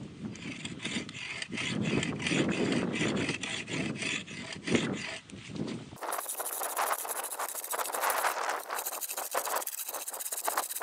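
A knife blade held at right angles scraping back and forth along a wet spruce paddle shaft in quick repeated strokes, shaving it round and smooth.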